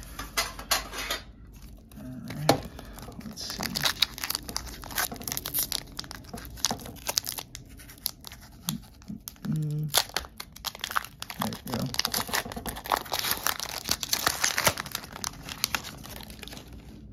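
Foil wrapper of a Pokémon card booster pack being torn open and crinkled, a dense run of crackles and clicks.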